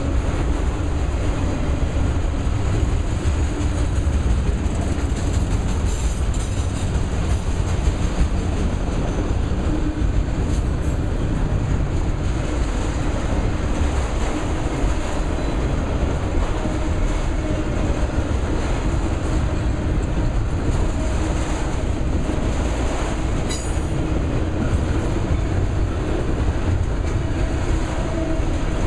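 Autorack freight cars rolling past at close range: a steady, loud rumble of steel wheels on the rails, with clickety-clack from the wheels. There is a single sharp click about three-quarters of the way through.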